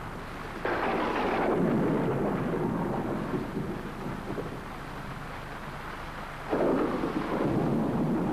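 Thunderstorm: two peals of thunder, one about a second in and one near the end, each breaking suddenly and rumbling on, over the steady hiss of rain.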